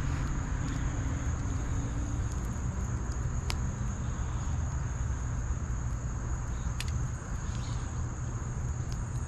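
Insects trill steadily at a single high pitch over a constant low rumble. Two sharp clicks come about three and a half and seven seconds in.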